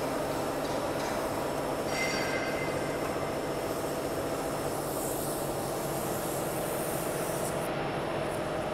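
Sheet-metal roll forming line running steadily as a steel sound-barrier panel moves through its roller stands, with a brief high metallic squeal about two seconds in.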